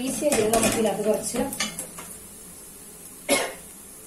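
Slotted steel spoon scraping and clanking against an aluminium pot while stirring a shallot-and-coconut mixture on the stove. There is a quick run of scrapes in the first two seconds and one sharp scrape a little past three seconds.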